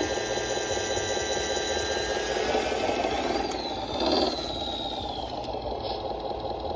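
Tamiya Scania 770 radio-controlled dump truck running, with a steady engine-like drone. About three seconds in a whine rises, then falls away over the next two seconds as the truck pulls forward from under its tipped load, with a short louder burst just after four seconds.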